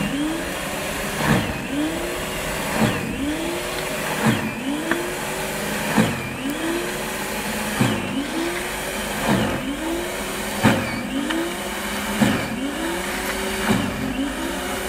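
Stiga single-stage electric snow thrower running while it clears snow. Its motor pitch sags and climbs back about every second and a half as each forward push loads the auger with snow.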